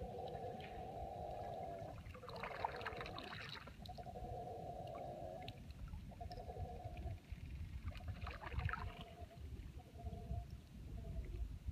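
Mantled howler monkeys howling: long, deep, sustained howls that break off and start again several times, with louder stretches about two seconds and eight seconds in. Two troops are howling at each other across the river in a territorial dispute.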